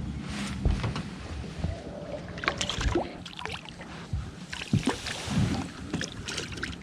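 Knocks and splashy water noises on a small fishing boat over a low steady hum, with several sharp knocks spread through.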